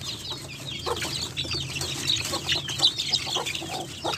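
A flock of young chickens peeping and clucking in many short, high calls, with a few short knocks from the coop's wooden door as it is unlatched and opened.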